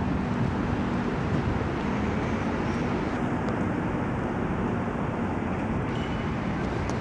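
Steady noise of city road traffic, an even wash of passing vehicles with no single one standing out.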